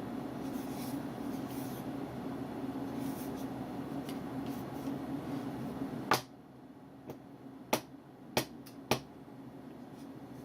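A steady low hum that stops with a sharp click about six seconds in, followed by five lighter clicks over the next three seconds.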